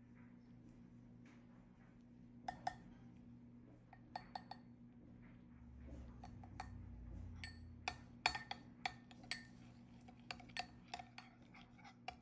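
Spoons clinking against a small glass bowl: a few light taps as spices are added, then a quick run of clinks as a metal spoon stirs olive oil and spices in the bowl.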